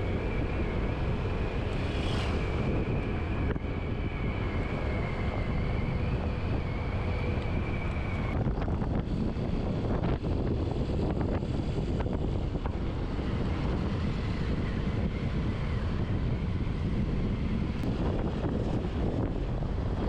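Steady rushing wind buffeting the microphone, with a thin steady whine that stops about eight seconds in.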